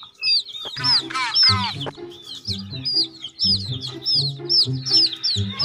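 Chickens peeping repeatedly in short high chirps, with a louder burst of clucking calls about a second in, over background music with low repeating notes.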